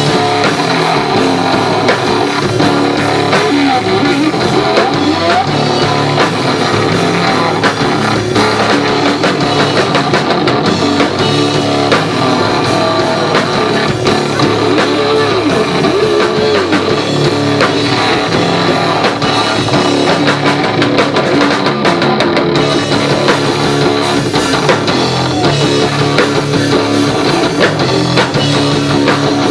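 Live rock band playing an instrumental passage with electric guitar and drum kit, with no singing. It is loud and continuous, and the lead guitar bends notes up and down through the middle.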